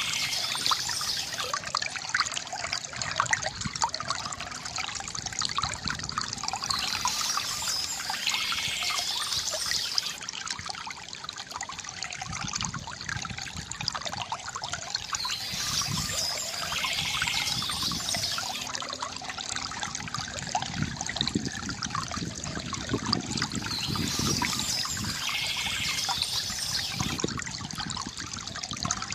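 Stream water trickling and flowing steadily, with a brighter high hiss that swells and fades about every eight seconds.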